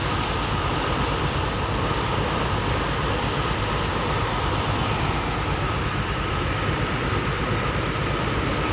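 A ship under way: the steady drone of its engines mixed with the rush of its churning wake, with a faint steady whine running through it.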